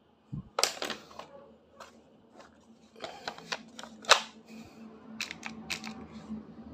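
Plastic clicks and knocks from handling a cordless Hilti SIW 14-A impact wrench and its battery pack: a few sharp clicks about half a second in, then clusters of them around three to four seconds and again around five to six seconds.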